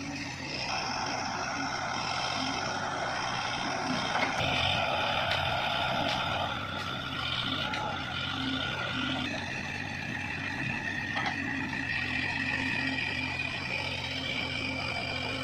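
Backhoe loader engine running steadily, with held high whining tones over it that jump to new pitches a few times.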